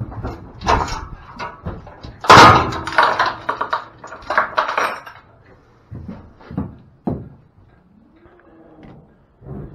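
Aluminium livestock trailer's compartment gate being swung shut and chained: a loud metal clang about two and a half seconds in, with clanks and rattles of the gate, chain and latch before and after it.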